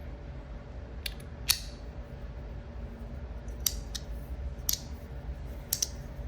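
Umburry magnetic haptic coin snapping from one magnet detent to the next as it is worked in the hand: several sharp metallic clicks, irregularly spaced, the first about a second in.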